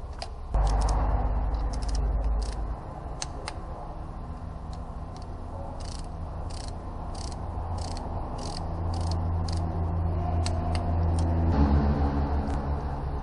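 Hand ratchet wrench clicking in short strokes, about two a second, as a bolt is turned, over a steady low hum.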